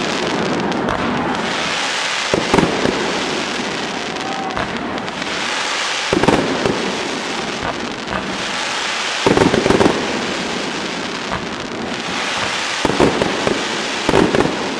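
Fireworks salute going off, with clusters of sharp bangs every few seconds, about five in all, over a steady crackling hiss.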